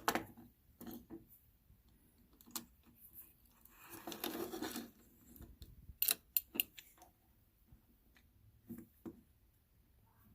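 Small clicks and scraping from handling and probing the pieces of a broken-open circuit breaker, with a longer scrape about four seconds in and a cluster of sharp clicks around six seconds.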